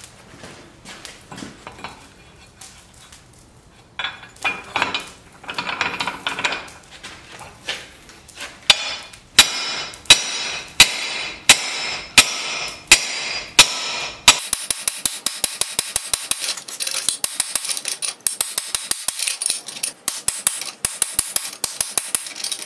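Hammer blows on a blacksmith's helper, drawing out the tang of a red-hot steel bar. A few light clinks come first. About nine seconds in, loud ringing strikes begin, roughly one and a half a second. About fourteen seconds in they switch to a fast run of lighter blows, about four a second.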